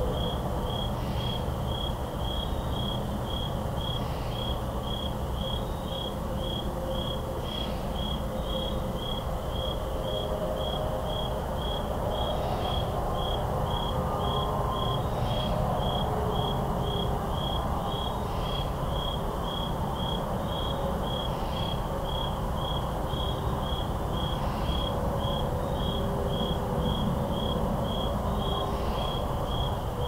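Crickets chirping in an even, steady rhythm of about two high-pitched chirps a second, with other fainter chirps every few seconds. Underneath is a steady low hum of distant highway traffic.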